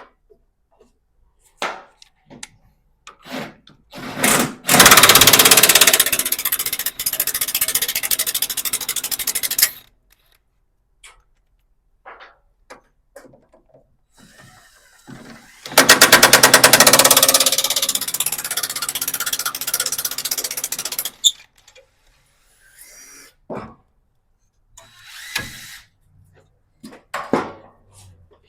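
Power impact wrench run in two long bursts of about five seconds each, loudest as each starts and easing off, as bolts are driven out. Short metallic clinks and knocks come between the bursts.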